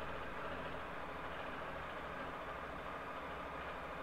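Steady vehicle engine noise: a low hum under an even hiss, with no sudden changes.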